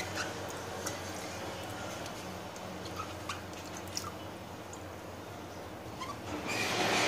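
Tap water running into a bowl of sour cherries while hands swish them about, with small splashes and the light clicks of cherries knocking together. A louder rush of splashing comes near the end.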